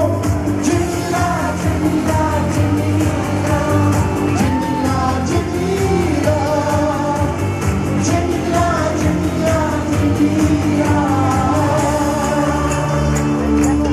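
Live pop song over a concert PA: a male singer's lead vocal over a band backing with a steady beat and heavy bass.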